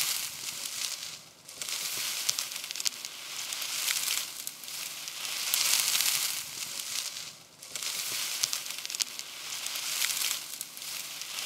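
Dry reed stems rustling and crackling as people push through a reed bed, brushing against bodies and the camera. The rustle swells and fades in waves every couple of seconds, thick with small snapping clicks.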